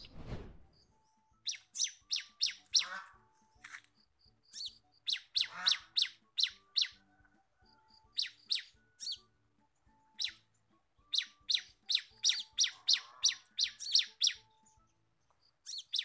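Sumatran bar-winged prinia (ciblek) calling in a run of sharp chip notes, several at a time at about three a second, with pauses between the groups. The notes come with gaps rather than in one tight rapid string, which the owner takes as the sign that the Sumatran ciblek cannot 'ngebren'. A falling swoosh sounds in the first second.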